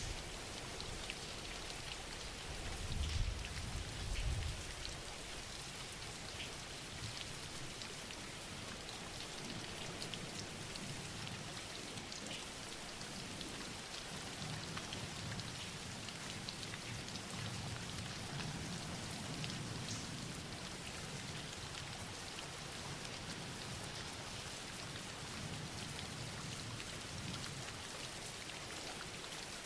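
Steady rain falling on a surface, with scattered individual drops ticking, and a brief low rumble about three seconds in.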